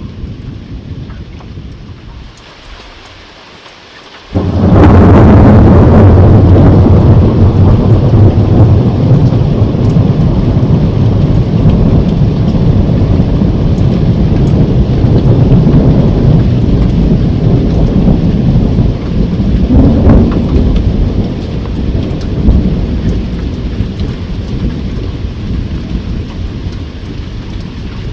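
Thunder over steady rain: after a few seconds of rain alone, a clap breaks suddenly about four seconds in and rolls on as a long low rumble, swelling again about twenty seconds in before slowly fading.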